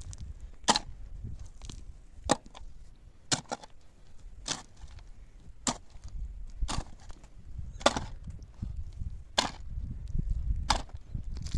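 A long-handled shovel digging into hard, stony earth, its blade striking the ground about ten times at roughly one stroke a second.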